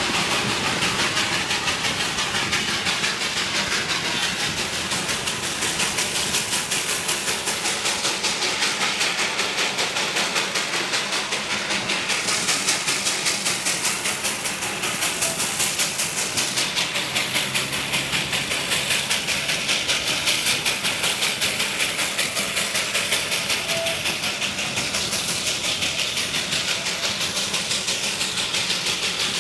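Darjeeling Himalayan Railway narrow-gauge steam locomotive working steadily, its exhaust chuffing in a fast, even rhythm with steam hiss, heard from a coach window together with the rumble of the train running.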